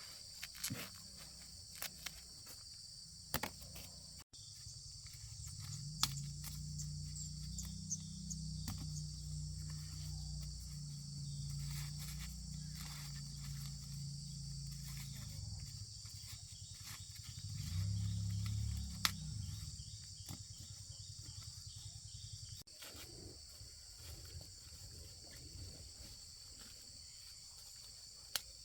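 Insects chirring steadily, with scattered clicks and rustles of footsteps and handling. A low rumble comes in about five seconds in and stops around sixteen seconds, then returns briefly a little later.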